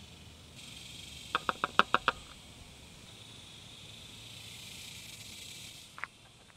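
A quick run of six sharp clicks about a second in, with one more click near the end, over a steady high hiss.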